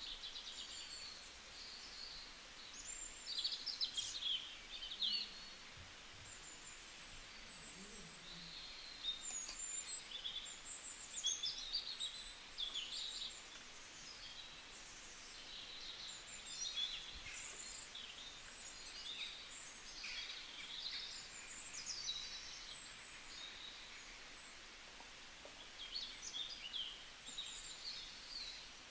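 Several birds chirping and singing in short, high warbling phrases over a faint steady hiss.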